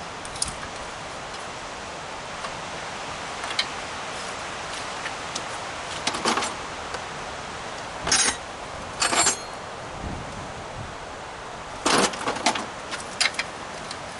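Short metallic clinks and rattles of hand tools and compressor parts being handled during disassembly: several brief clatters, the loudest about eight and nine seconds in and again about twelve seconds in, over a steady background hiss.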